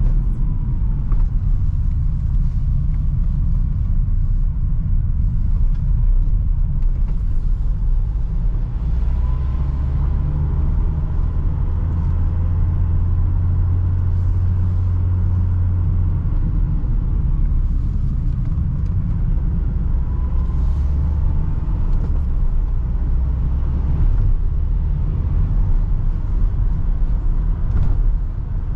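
Renault Trafic van driving, heard from inside the cab: a steady engine and road rumble. A deeper drone grows louder for several seconds in the middle, twice.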